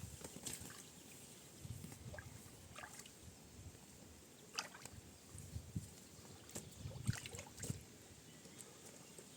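Light, irregular water splashing and sloshing, a few small splashes every second or so.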